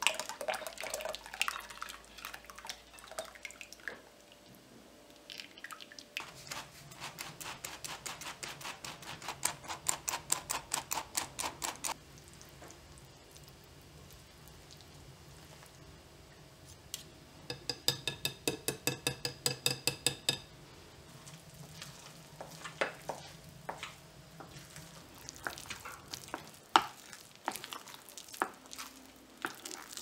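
Wire whisk stirring batter in a glass bowl, the wires clinking and scraping against the glass in two runs of quick, even strokes of about five a second. Between and after the runs come scattered taps and knocks as the mix thickens into a stiff dough.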